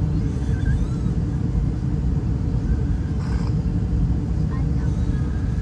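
Steady low rumble of an Airbus A320 airliner in flight, as heard inside the cabin, even throughout with no change in pitch or level.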